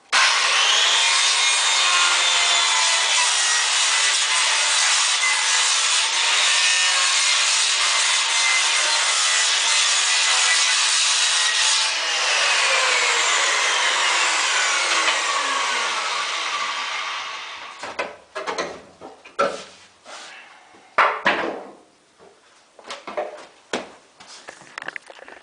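Circular saw starting up with a rising whine and cutting through pallet wood for about twelve seconds, then released and winding down with a falling whine. Several sharp wooden knocks and clatters follow.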